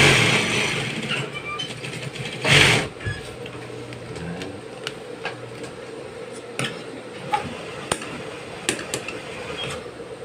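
Industrial sewing machine with its motor humming steadily, running in two short stitching bursts: one about a second long at the start and a briefer one about two and a half seconds in. After that come scattered light clicks and snips as the cloth is handled and threads are cut with scissors.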